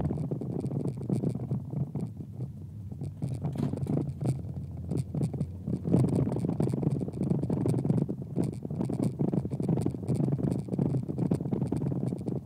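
Interior noise of a 1999 Volkswagen New Beetle driving slowly: a low engine and tyre rumble with frequent scratchy rattles and scrapes. The rumble grows louder about six seconds in.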